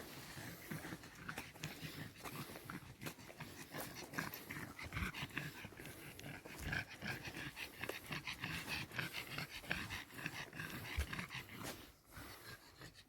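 A dog panting, with many short irregular clicks and rustles.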